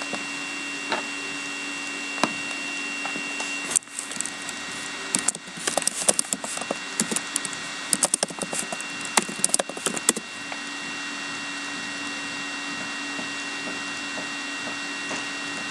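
A foil trading-card pack being torn open and its cards handled: a run of sharp crinkling and crackling from about four seconds in to about ten seconds, over a steady electrical hum.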